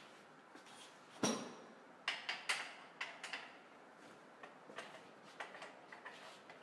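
A metal light stand being carried and set in place: a sharp knock about a second in, then a run of lighter clicks and clanks that grow fainter toward the end.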